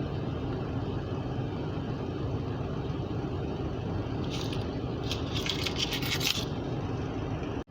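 Small aluminium mini carabiners clinking and scraping against each other as they are slipped off a multi-carabiner key clip, in two bursts past the middle, over a steady low hum.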